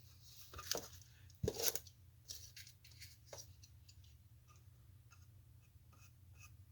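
Small handling noises of wood glue being applied to a wooden drawer part: two brief scrapes or squelches in the first two seconds, then faint scattered ticks and taps.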